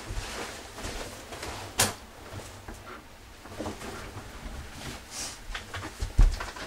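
Clothing rustling and light knocks as a jacket is taken off and hung on a hallway coat hook, with a sharp click about two seconds in and a low thump near the end.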